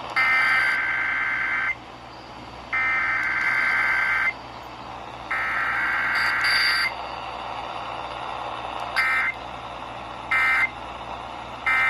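Emergency Alert System SAME data tones: three long buzzing digital header bursts of about a second and a half each, a second apart, then three short bursts, the end-of-message code.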